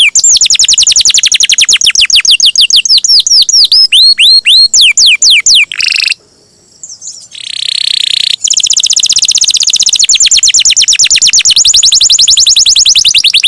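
Domestic canary singing long, rapid rolling trills of repeated down-sweeping high notes. There is a short break with a few different notes about six seconds in, then another long unbroken trill.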